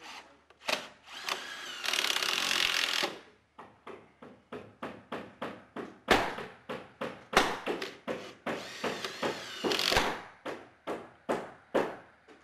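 Cordless drill driving screws through a galvanized steel joist hanger: a steady run of about a second near the start, then many short trigger bursts, with another longer run near the end.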